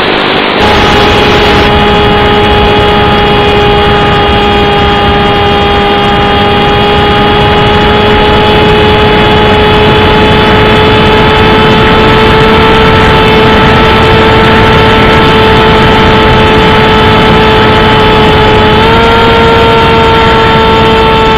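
Small RC plane's electric motor and propeller running at steady throttle: a steady whine under a loud rushing noise. Its pitch creeps slowly higher, with a small step up near the end.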